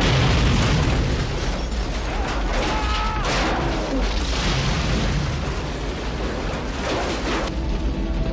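Film sound effects of a large ship crashing through a pier and onto land: a loud, dense crashing and rumbling din that starts abruptly, with a few brief pitched wails about three seconds in, easing off near the end.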